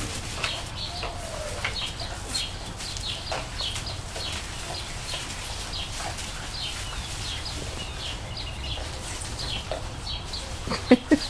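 Small birds chirping: short high chirps, several a second, all the way through. Near the end come two or three short, louder yelps from the puppies.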